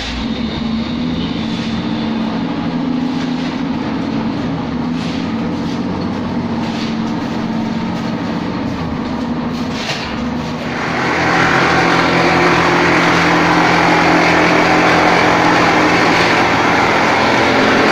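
Plastering machine running with a steady mechanical hum. About ten seconds in, a loud rushing hiss starts abruptly and holds.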